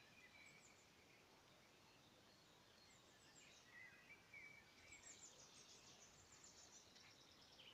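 Near silence, with faint distant birds: scattered short whistles and chirps, busier in the second half.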